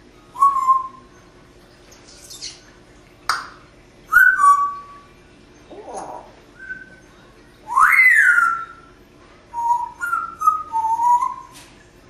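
African grey parrot whistling a string of short, clear notes, the longest a swoop that rises and then falls about two-thirds of the way through, with a few sharp clicks in between.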